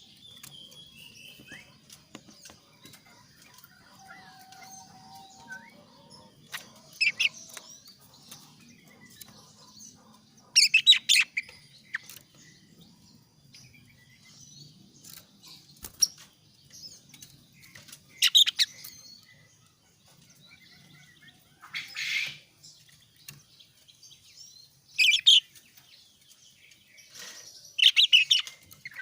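Male kaso-kaso bird singing: short, loud, high-pitched phrases about a second long, repeated every few seconds, with faint chirps in between. A song of this kind is played to caged birds as a prompt to get them singing and answering.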